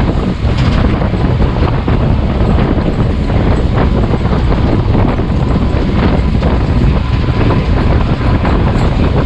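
Wind buffeting the action camera's microphone, with a steady low rumble of a motorboat running over the water.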